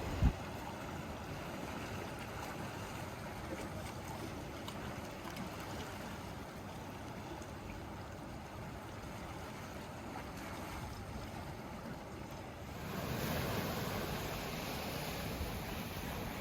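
Sea waves washing against the shore as a steady hiss, with a louder wash building up near the end. A single brief low thump right at the start.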